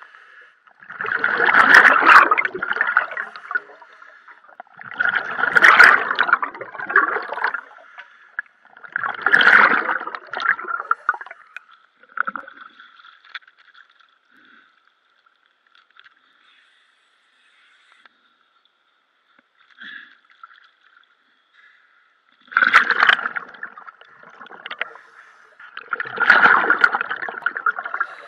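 Scuba diver's exhaled air bubbling out of the regulator underwater, in loud bursts about every four seconds: three breaths, a quiet stretch of about ten seconds, then two more.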